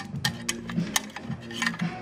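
Irregular sharp clicks and crackles of aluminium foil being handled and pressed into a car headlight housing.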